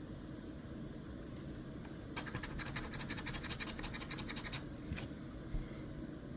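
A crossword scratch-off lottery ticket being scratched: a quick run of rapid rubbing strokes for about two and a half seconds in the middle, then a single click.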